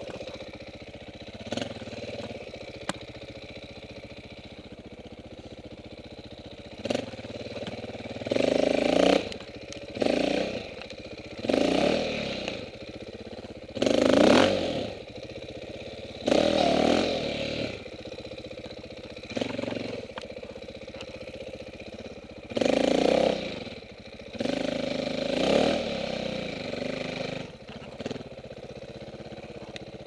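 KTM 450 four-stroke single-cylinder dirt bike engine being ridden, revving in about nine short bursts a couple of seconds apart. It drops back to a low, steady run between the bursts.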